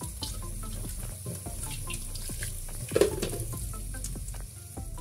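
Tap water running into a stainless steel kitchen sink as raw chicken and a metal bowl are rinsed, with a knock about three seconds in.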